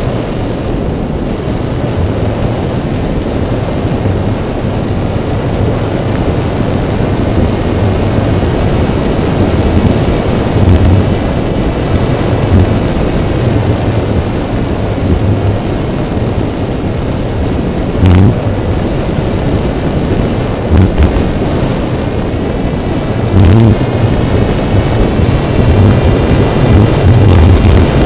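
Steady loud wind rumble buffeting a drone's onboard microphone, with a faint high whine from its propeller motors underneath; a few stronger gusts come now and then.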